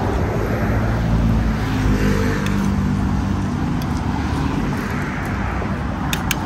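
Road traffic passing close by, a large vehicle such as a bus running past with a low engine hum that swells and fades about two seconds in. A few sharp clicks near the end.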